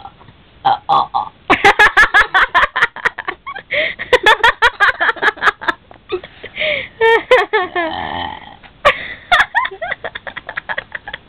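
A person burping, a long run of loud belches one after another, one of them drawn out about two-thirds of the way through.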